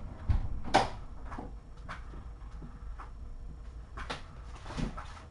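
Kittens playing on a hard floor, making scattered light knocks and clatters, the sharpest about a second in, over a faint steady hum.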